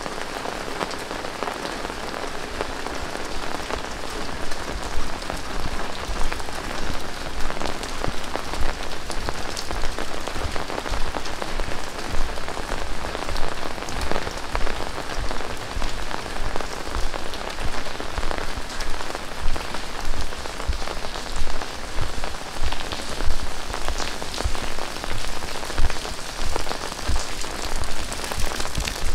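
Heavy rain pouring down, with a dense hiss of rain on the ground and many sharp close drop impacts. It swells over the first few seconds and then holds steady.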